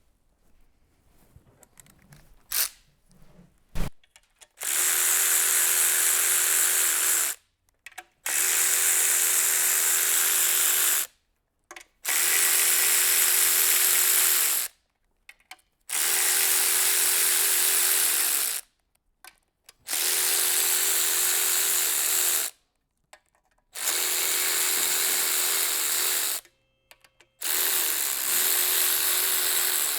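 A power tool, a drill or driver, run in seven steady bursts of about three seconds each with short pauses between, as fasteners are run out during an engine teardown. A few light clicks come before the first burst.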